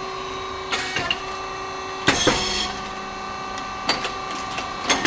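Rice cake popping machine running: a steady hum of its hydraulic pump motor, with a few sharp mechanical clacks and a short, loud hissing burst about two seconds in.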